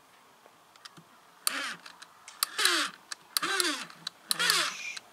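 Plastic toy assault rifle being handled and fired: scattered clicks, then four short electronic firing-sound bursts with sweeping tones, about a second apart, each set off by a sharp trigger click.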